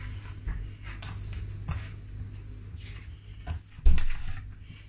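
Hands kneading soft sweet-potato dough in a stainless steel mixing bowl: scattered soft squishes and knocks over a steady low hum, with one louder thump about four seconds in.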